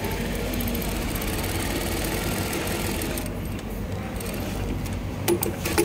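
Baoyu GT-288CM single-needle direct-drive industrial sewing machine stitching, running steadily for about three seconds and then quieter, with a few sharp clicks near the end.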